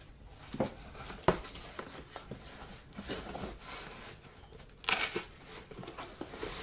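Cardboard shipping box being opened by hand: flaps rustling and scraping, with a sharp knock about a second in and a louder tearing rasp about five seconds in.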